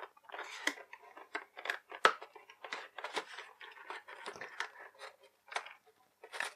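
Cardboard box and plastic packaging insert scraping and crinkling as the insert is pulled out of the box end, in many short, irregular rustles and clicks; the insert is stuck and catching inside the box.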